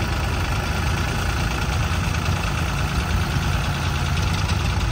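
A tractor engine running steadily, with a low, even note and no change in speed.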